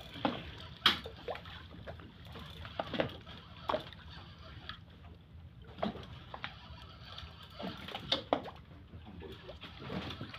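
Sea water sloshing and splashing at a fishing boat's side, with scattered sharp splashes and knocks over a steady low rumble.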